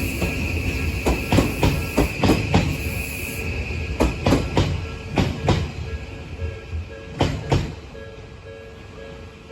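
Odakyu electric train passing over a level crossing, its wheels clicking in pairs over a rail joint, with the last clicks about seven and a half seconds in. Under it, the level-crossing warning bell keeps ringing in a steady repeating beat, left on its own once the train has gone.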